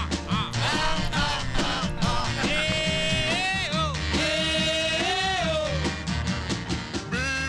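Music: an upbeat song with a singing voice over a steady beat, the singer holding two long notes in the middle.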